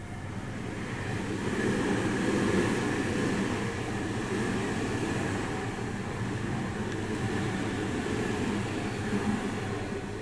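Tobu Tojo Line train passing over a level crossing: a steady rumble of wheels and running gear that swells over the first two seconds and stays loud.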